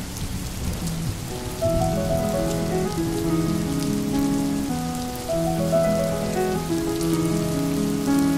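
Steady rain falling, with soft, slow background music of long held notes that grows louder about a second and a half in.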